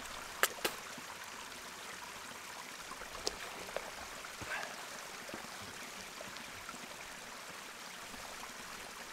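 Small stream of running water trickling steadily. Two sharp clicks come about half a second in, and a single click follows a few seconds later.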